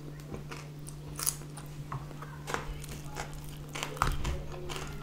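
Close-miked chewing and crunching of food, crisp cucumber slices among it, with scattered short crunches over a steady low hum. About four seconds in come a few soft thumps and rustles as hands pull apart a grilled chicken.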